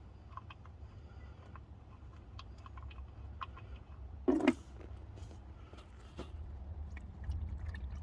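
Work on an engine sump plug under a car: scattered light clicks of metal tools, with one sharp knock about four seconds in, over a steady low rumble.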